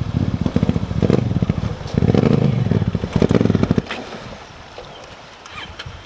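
Honda Africa Twin's parallel-twin engine revving in uneven bursts as the bike pushes through a shallow river, water splashing around the wheels. About four seconds in the engine drops to a quiet idle as the bike stops at the water's edge.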